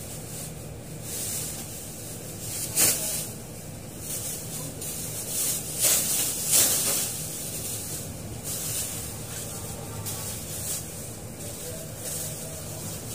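A plastic garbage bag being handled: irregular rustling and scraping, loudest in short bursts about three seconds in and again around six to seven seconds in, over a faint steady low hum.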